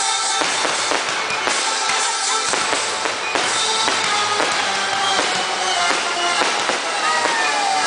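Fireworks going off in quick succession, many bangs close together, with music playing along.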